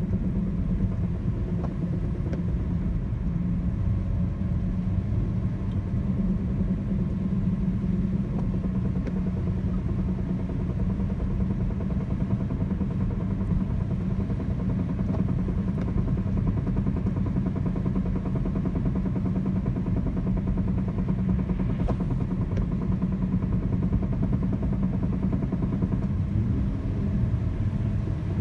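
2004 Chrysler Sebring running steadily with a knocking noise from the front end. The owner says it comes just before the engine is put under load and goes away completely under load.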